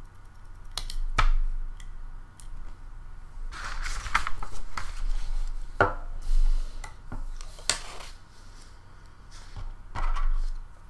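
Desk handling noises: scattered light knocks, clicks and rustles, a few at a time with short gaps between.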